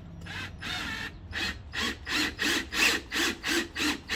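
Cordless drill working into a wooden frame joint, making a rhythmic ratcheting about three times a second that grows louder and more regular about a second and a half in.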